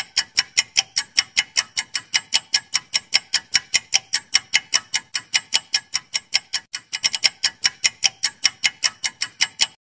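Clock-ticking sound effect for a quiz countdown timer: fast, even ticks, about five a second, with a brief stumble in the rhythm about seven seconds in. It cuts off suddenly at the end.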